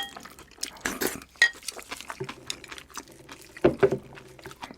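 Utensil clinking and scraping against a dish of jjajang rice, with scattered sharp clicks. One clink rings briefly about a second and a half in, and a few louder knocks come near the end.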